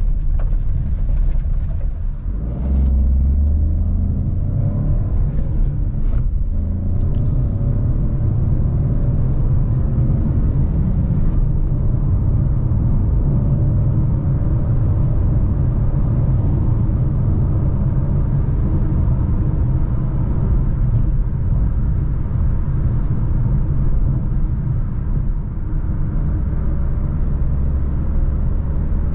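Jeep Avenger with its 1.2 turbo three-cylinder petrol engine driving, a steady low rumble of engine and road noise; the engine note rises a few seconds in as the car accelerates.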